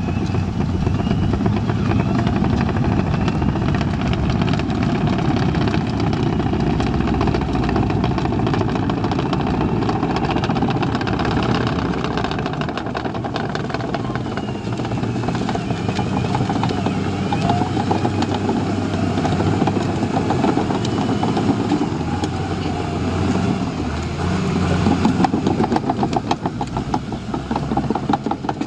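Caterpillar D5N LGP crawler dozer working: its diesel engine runs under load along with a rapid clatter from the tracks as it pushes soil. The clatter grows louder near the end.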